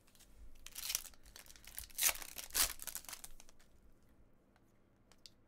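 Foil wrapper of a trading-card pack being torn open and crinkled: a short burst of tearing about a second in, then a longer stretch of crinkling.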